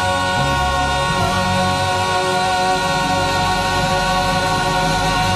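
A male gospel vocal group holds one long sustained chord in close harmony, with the band's bass and drums moving underneath. It is the song's closing note.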